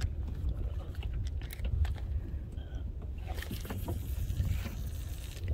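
Water moving around an inflatable kayak, with a steady low rumble of wind on the microphone and scattered small clicks and knocks of fishing gear. A rushing hiss joins in from about three seconds in.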